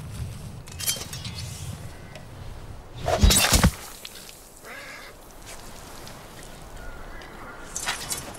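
A sword stroke in a beheading: one loud, heavy chop about three seconds in, with softer swishes before and after it.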